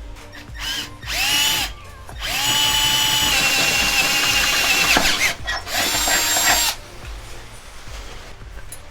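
Power drill with a 7/16-inch bit running three times, once briefly, once for a couple of seconds and once briefly, each run a steady whine: it is enlarging the mower's mounting holes to fit the new front casters.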